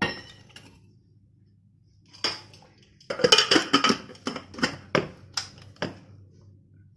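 Aluminium pressure cooker's lid being fitted and locked on, metal on metal. A clack at the start and another about two seconds in, a run of clattering about three seconds in, then four sharp clicks in quick succession as the handles close and the cooker is moved.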